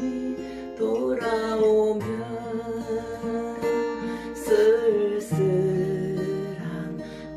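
Music: a strummed acoustic guitar with a held, wavering melody line over it.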